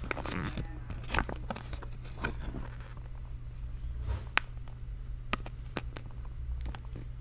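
Handling noise: scattered sharp clicks and brief rustles as a small plastic toy figure and a paper leaflet are moved about in the hands, over a steady low hum.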